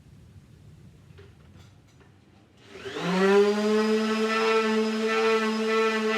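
A few faint clicks, then a power tool's electric motor switches on about three seconds in, spinning up quickly with a rising whine and then running steadily at speed.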